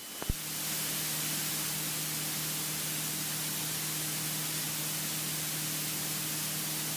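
Steady hiss of a light aircraft's intercom/headset audio feed, with a faint low hum underneath. A single click comes just after the start, and the hiss swells over the first second before holding level.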